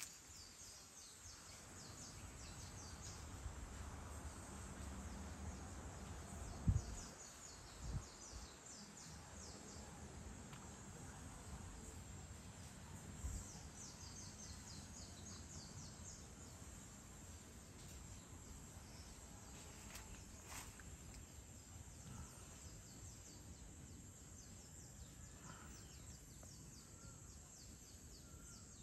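Faint evening outdoor ambience: insects chirping in high, rapid trills that come and go. Two short low thumps about seven and eight seconds in.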